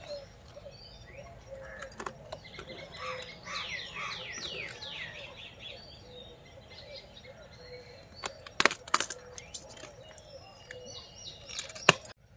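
Small birds chirping again and again, with a quick run of falling chirps about three to five seconds in. A few sharp knocks, louder than the birds, come about eight and a half to nine seconds in and again near the end.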